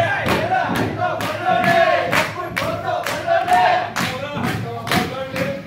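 A group of actors shouting and whooping together as they horseplay on a stage, over a fast run of thumps, about three a second.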